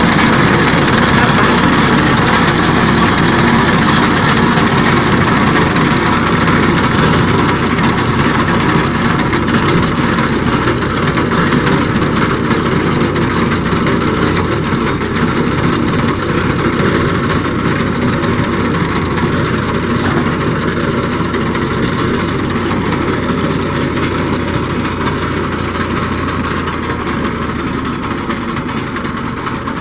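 Diesel engine of a Farmtrac Champion tractor running steadily under load while it pulls a rear-mounted reaper cutting a fodder crop, the cutter's clatter mixed in. The sound fades a little near the end.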